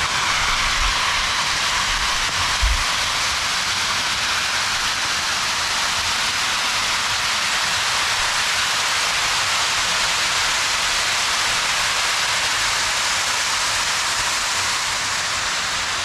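Steady rushing hiss of water falling through a rocky mountain gorge, running evenly without change.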